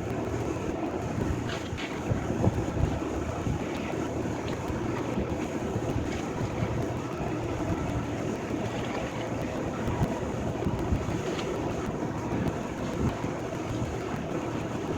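Heavy demolition machinery running steadily, with continual crunching and clattering of debris and scattered sharp cracks as the building is torn down.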